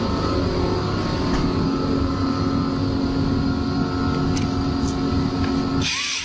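Cordless drill motor running steadily, spinning a paint roller against a wall. Just before the end it cuts off abruptly and a hiss with wavering whistling tones takes over.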